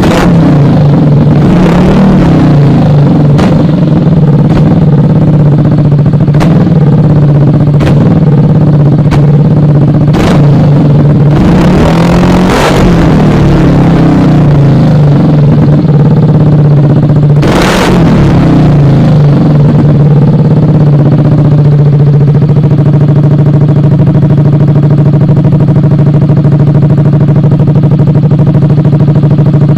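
Yamaha NMAX scooter's single-cylinder engine through an aftermarket exhaust pipe, idling loudly with a series of short throttle blips, then settling into a steady idle for the last third.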